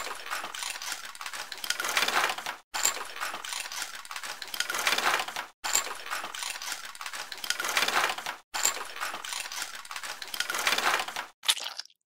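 Human bone crunching sound effect: four stretches of dense crackling, each about three seconds long and separated by short breaks, then a brief burst near the end.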